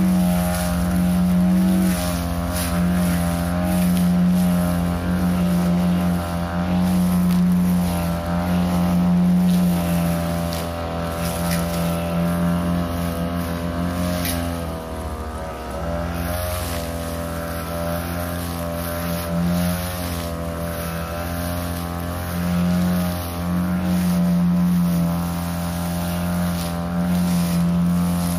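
Backpack petrol brush cutter running at high throttle while its 45 cm blade cuts waist-high cogon grass. The engine note swells and sags with each sweep through the grass, and it eases off briefly about halfway through.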